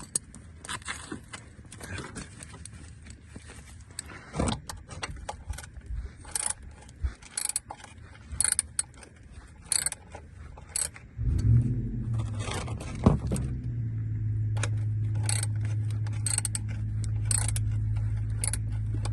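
Socket wrench and ratchet clinking and scraping against metal in short, scattered clicks while the oil pan drain plug is worked loose. About eleven seconds in, a steady low hum starts and keeps going.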